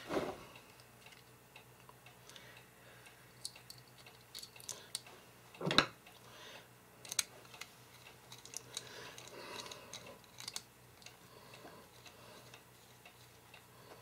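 Faint clicks and light scraping of a Phillips screwdriver driving the screw that holds a die jaw in a coax crimping tool, with small knocks from handling the metal tool; one louder knock about six seconds in.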